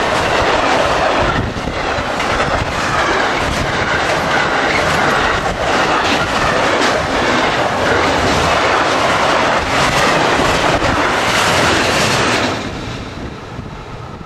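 Container freight train's wagons passing close at speed: a steady wheel-and-rail rumble with repeated clacks. It fades quickly about twelve and a half seconds in as the last wagon goes by.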